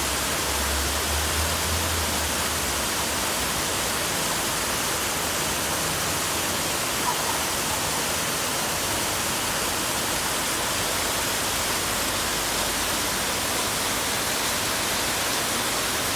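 Plaza fountain with dozens of vertical water jets, a steady rushing hiss of water shooting up and splashing back into the basin.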